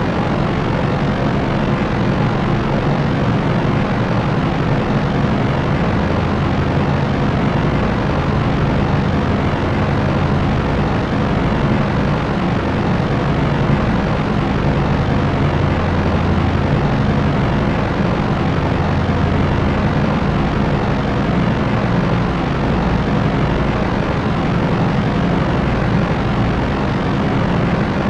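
Propeller aircraft's propellers and engines droning steadily: a low hum under an even hiss, unchanging throughout.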